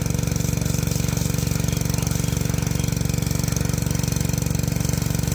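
Small engine of a water pump running steadily at one speed with a fast, even pulse, driving the hose used to wash freshly dug galangal.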